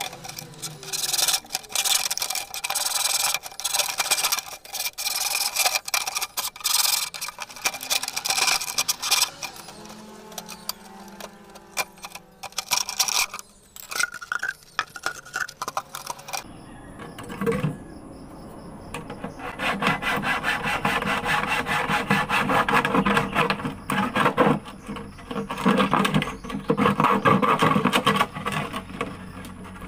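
Scraping and rubbing strokes, irregular at first, then rapid and steady, like sawing or filing, through the second half.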